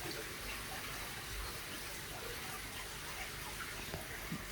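Steady running-water noise, an even hiss without a rhythm.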